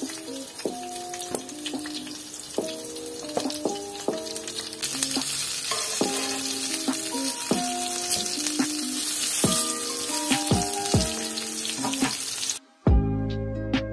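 Bean-and-soy veggie burger patties and bread buns sizzling in oil on a flat griddle, the sizzle getting louder about five seconds in. A light background melody plays over it and changes to fuller music with a bass beat near the end.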